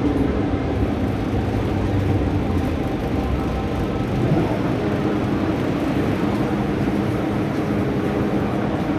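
Hong Kong MTR M-Train electric multiple unit, heard inside the carriage as it slows into a station: steady wheel-on-rail rumble with a hum of several steady motor tones.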